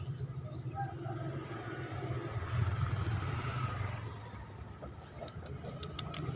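Steady low engine rumble of background traffic, swelling as a vehicle passes about two and a half to four seconds in, with a few faint clicks near the end.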